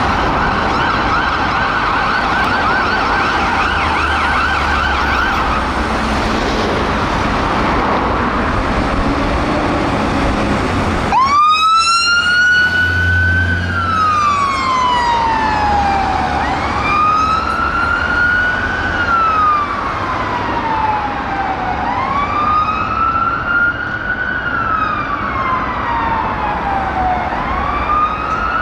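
Fire engine siren, a MAN TG rescue pump's, first in a fast yelp. About eleven seconds in it changes to a slow wail that rises quickly and falls away, repeating about every five seconds over road and traffic noise.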